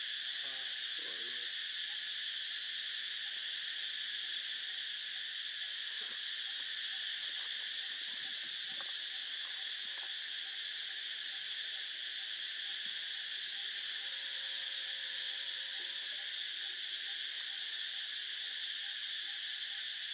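Steady chorus of insects, an unbroken high-pitched buzz, with a few faint knocks and rustles about halfway through.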